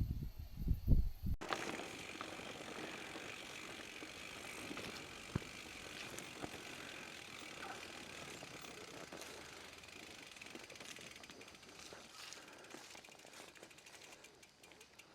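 Bicycle coasting: the freewheel hub ticks rapidly under tyre noise and fades near the end. In the first second and a half, wind buffets the microphone before an abrupt cut.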